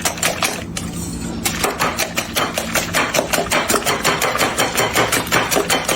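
Seasoned egg whites being beaten by hand in a bowl to froth them, the utensil clicking against the bowl in rapid, even strokes, with a short pause about a second in.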